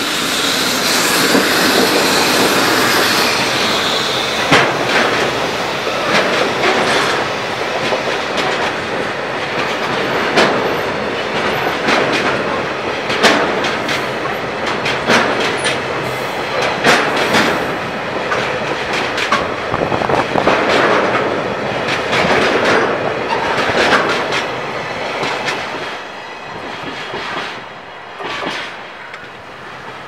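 EF65 electric locomotive passing close, followed by a long train of tank wagons rolling by, the wheels clacking over rail joints every second or two. The noise falls away a few seconds before the end as the last wagon goes by.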